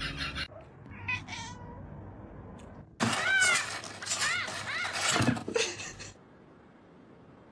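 Cat meowing: a run of several high-pitched meows, each rising and falling in pitch, starting about three seconds in and lasting about three seconds.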